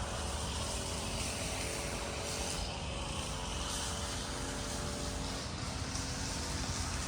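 Steady low rumble of distant engine noise, with a faint steady hum.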